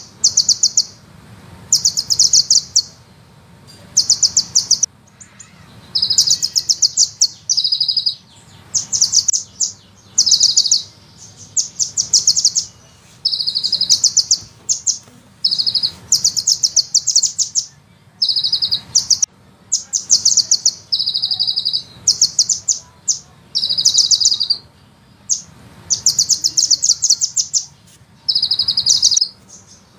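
Sunbird singing: a series of rapid, high-pitched rolling trills, each about a second long, repeated with short gaps.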